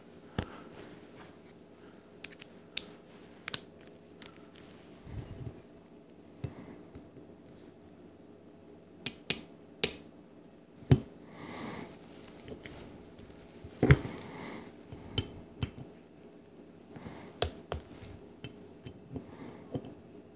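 Irregular sharp metallic clicks and taps from a click-type torque wrench and bit socket tightening small screws on a Holley 4160 carburetor part to 35 inch-pounds. Metal parts and tools are handled on the table, with a few duller knocks.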